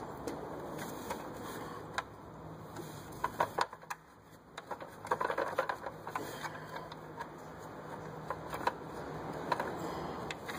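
Irregular sharp metallic clicks and clinks from hand work on the alternator's mounting nuts and bolts, with busier clusters about a third of the way in and around halfway.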